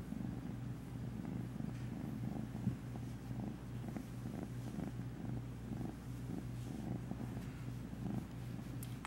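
A kitten purring steadily while it is stroked by hand, a continuous low rumble, with a brief soft knock about three seconds in.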